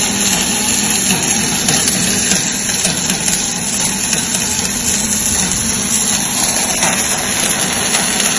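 Steady industrial machinery noise in a steel-fabrication shop: a continuous hiss with a low, steady hum.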